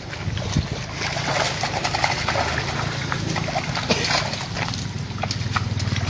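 Fish thrashing and splashing in shallow water as they are crowded in a drag net hauled up to the bank. The splashing starts about a third of a second in and keeps going in quick irregular bursts, over a small engine running steadily underneath.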